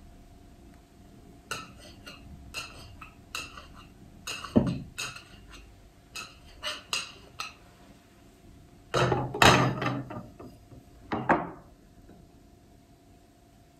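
Kitchen knife clicking and scraping against a small bowl used as a template to cut a round out of a cake layer: a run of sharp clicks and a knock, then louder clattering of dishes in the last third.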